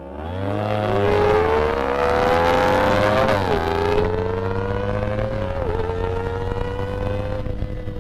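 Kawasaki Ninja ZX-25R's 250 cc inline-four revving high under hard acceleration, a high-pitched wail that climbs steadily in pitch. It drops abruptly at two upshifts, about three and a half and five and a half seconds in, then climbs again each time.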